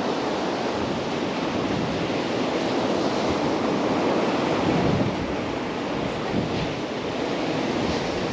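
Small waves washing up and draining back over sand and pebbles at the water's edge: a steady hiss of surf that swells a little about five seconds in, then eases.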